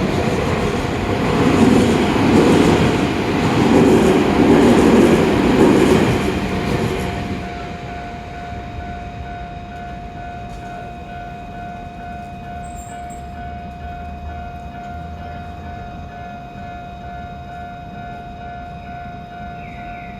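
Train passing over a railway level crossing, its wheels rumbling in rhythmic swells for about seven seconds before it fades away. Under and after it, the crossing's warning bell keeps ringing with a steady, repeating tone.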